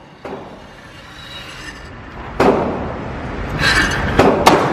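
Gunshots at a shooting range: a lighter shot just after the start, a loud shot about halfway through with a long echoing tail, then two more shots in quick succession near the end.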